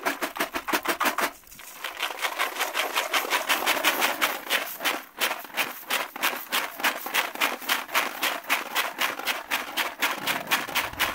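Sand and gravel rattling and sliding inside a Golden Retriever hand-held aluminium drywasher, shaken fast and evenly at about six strokes a second, with a short pause about a second and a half in. The shaking settles the heavy gold into the riffles while the light fines are thrown off.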